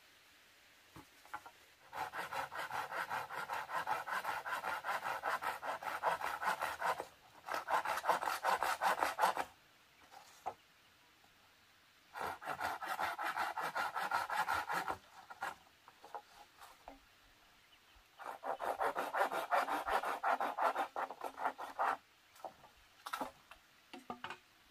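Hand saw cutting bamboo poles in quick back-and-forth strokes, in four bouts with short pauses between them.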